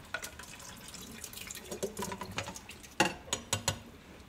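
Chunks of marinated chicken scraped from a glass bowl and dropping into a pot of thick creamy tomato sauce as it is stirred, with soft wet plops and squelches. About three seconds in come several sharp clicks of the utensils against the bowl and the steel pot.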